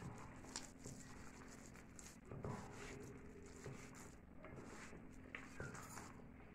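Hands mixing and kneading a wet batter of sliced onions, flour, curd and water in a steel bowl: faint, soft squishing and rustling with occasional light taps.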